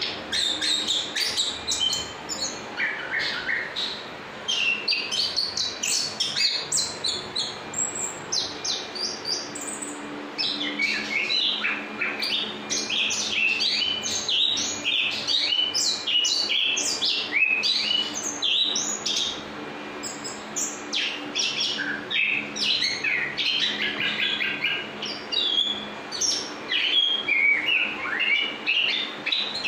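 Chestnut-capped thrush (anis kembang) singing a long, nearly unbroken rolling song of quick, varied high chirps and whistles, with only brief pauses: the continuous 'ngerol' delivery of a bird in full song.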